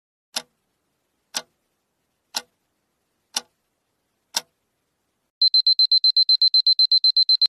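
Countdown timer sound effect: five clock ticks, one a second, then a rapid high-pitched alarm beeping, about eight beeps a second, signalling that the time to answer is up.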